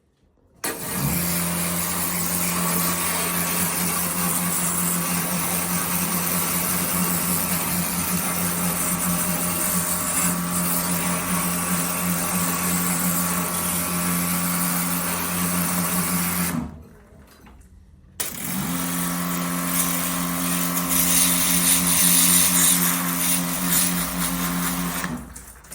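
Kärcher OC 3 cordless low-pressure washer's battery pump running with a steady hum and a hiss of spray. It stops about two-thirds of the way through and starts again a second and a half later.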